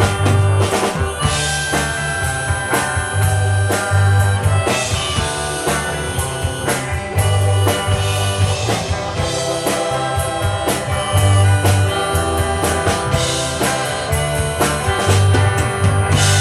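Live rock band playing an instrumental passage of a song: drum kit, bass guitar, electric guitars and keyboards, with a pulsing bass line and steady drum beat.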